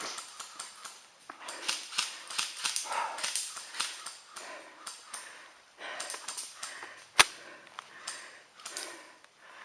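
Irregular rustling and scuffing close to the microphone, with one sharp crack of an airsoft gun about seven seconds in.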